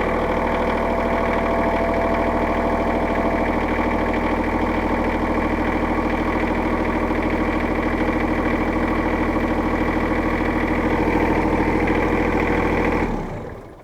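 Kubota L3800 tractor's diesel engine idling steadily just after starting, once the plunger switch on the speed-control pedal has engaged. It is shut off about 13 seconds in and runs down within about half a second.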